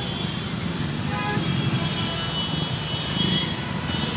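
Steady city street traffic noise: the running engines and tyres of cars and other vehicles.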